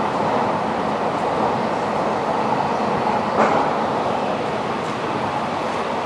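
Stockholm metro train running through the station: a steady rumbling rail noise that fades a little towards the end, with one brief click about three and a half seconds in.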